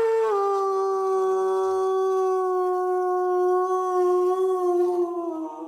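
Werewolf howl sound effect: one long howl held on a steady pitch, dipping slightly in pitch near the start and fading away at the end.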